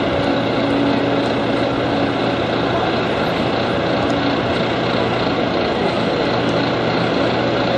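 Volvo B9TL bus's six-cylinder diesel running steadily, with the hoover-like whine the B9TL is known for. It is a level, unchanging drone of several steady tones, with no revving.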